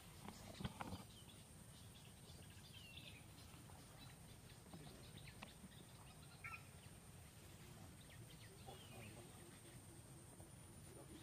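Faint outdoor ambience close to silence: a few short, falling bird chirps, a thin steady high whine, and a cluster of soft knocks and clicks about half a second to a second in.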